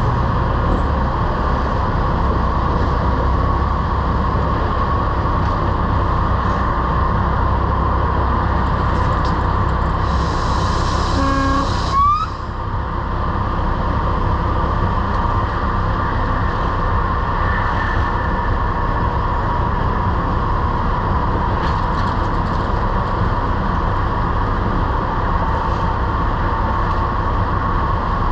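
Heavy-haul truck's diesel engine running steadily under way. About ten seconds in there is a short hiss, then a brief horn-like toot that glides upward.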